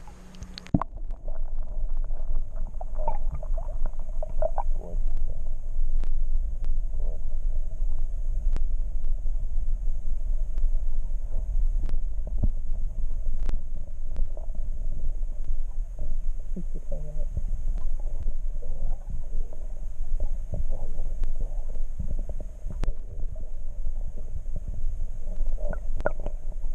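Stream water heard through an underwater microphone: a steady low rumble with many scattered faint clicks and knocks, starting abruptly about a second in as the microphone goes under.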